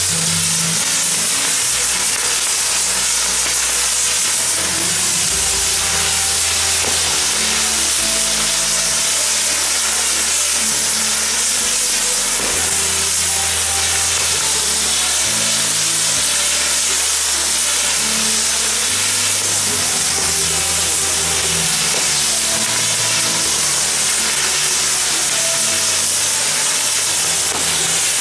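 Mechanical ground firework (a spinning firework wheel) with its fountains firing: a loud, unbroken spraying hiss, with music underneath.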